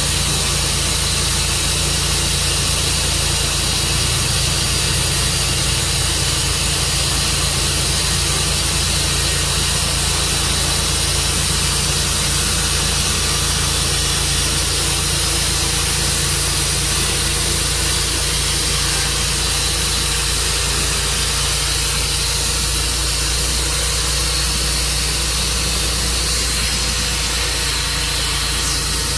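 Tru Cut sawmill running steadily, its engine giving a constant drone under an even hiss.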